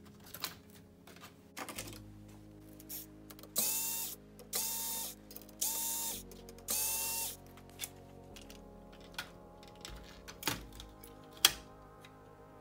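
Cordless electric screwdriver whirring in four short bursts of about half a second each, driving out the screws that hold a cassette tape mechanism. Afterwards come scattered clicks and knocks of plastic and metal parts being handled, one sharp click loudest of all.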